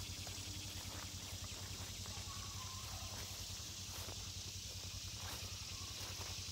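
Steady high drone of insects in a summer field, with footsteps swishing and crunching through tall grass and weeds.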